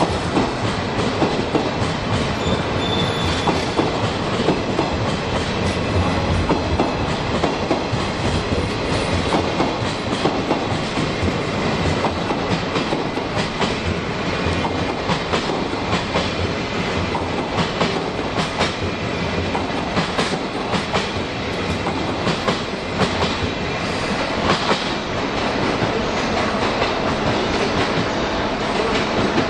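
Sleeper express train rolling through the station on departure: a steady rumble of wheels on rails, with frequent clicks as the wheels pass over rail joints.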